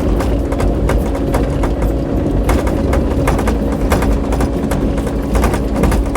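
Kubota KX080-4 excavator's diesel engine running steadily under work, with frequent irregular clacks and knocks over it.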